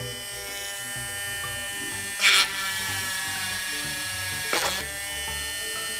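Slite 12 V mini hand drill running with a steady high-pitched whine while drilling a printed circuit board. Twice, about two seconds in and again about four and a half seconds in, there is a short, louder grinding burst as the bit bites into the board.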